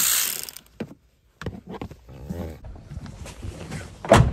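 A cordless electric ratchet runs on a seat-mounting bolt and cuts off within the first second. Scattered handling noises follow, then a loud thump near the end as the front seat is pulled free.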